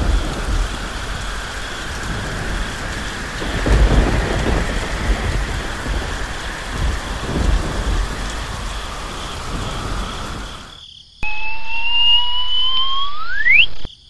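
Rain and thunderstorm sound effect: steady heavy rain with thunder rumbling about four seconds in and again about seven seconds in, cutting off suddenly near eleven seconds. It is followed by a rising whistle-like tone for about three seconds that sweeps sharply upward at the end.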